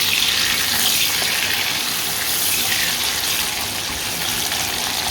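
Spice-marinated chicken pieces sizzling as they fry in hot oil in a pan: a steady hiss.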